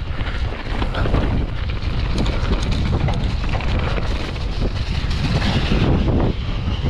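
Wind buffeting the microphone with a heavy low rumble, with scattered clicks and rattles throughout.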